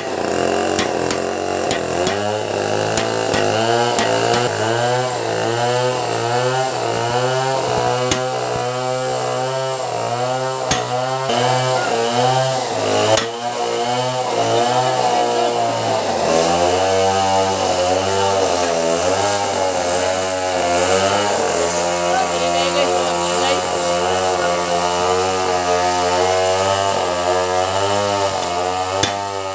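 Chainsaw running steadily, its pitch wavering up and down about every half second as it works, with a shift in its note about halfway through. A few sharp metal knocks come through it, from a steel drift being driven against a ball bearing.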